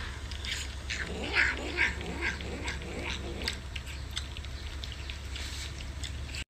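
A tabby cat making a series of short meows while being scratched behind the ear, starting about a second in and trailing off after three and a half seconds, over a low steady hum.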